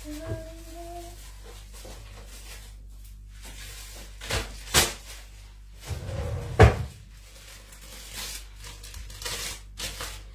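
Kitchen cupboard door being opened and shut, with a few sharp knocks about four to five seconds in and a louder bang about six and a half seconds in. A plastic bag rustles near the end.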